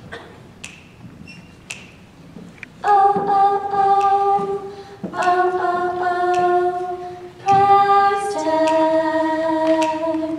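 A girl singing solo and unaccompanied into a microphone: three long, steady held notes, the last stepping down in pitch partway through. Before the first note, about three seconds of quiet with a few light taps.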